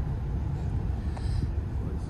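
Steady low rumble of road and engine noise heard inside a moving truck's cabin.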